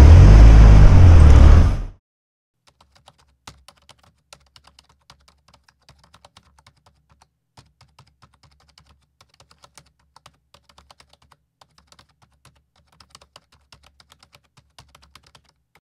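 Loud road traffic noise with a low rumble for about two seconds, cutting off abruptly. After that, faint, irregular clicking like typing on a computer keyboard.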